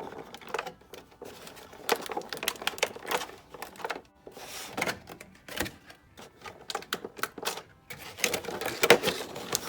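Plastic toy packaging clicking, tapping and crinkling in irregular bursts as an action figure is pressed back into its tray.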